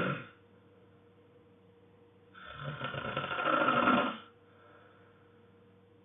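A sleeping person snoring. A snore trails off right at the start, then about two and a half seconds in comes one long snore of about two seconds that grows louder before stopping.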